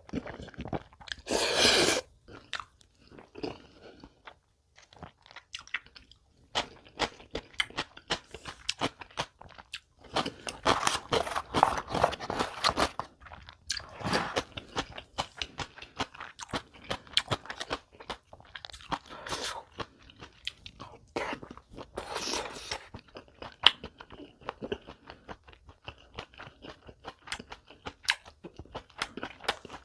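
Close-miked crunching and chewing of crisp food, with bursts of sharp crunchy bites between quieter chewing.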